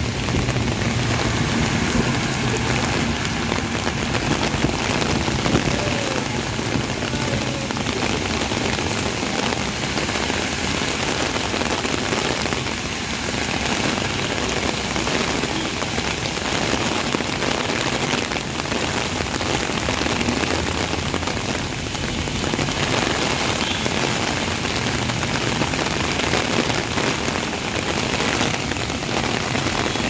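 Heavy rain pouring down steadily onto a wet road and puddles, a dense, even hiss.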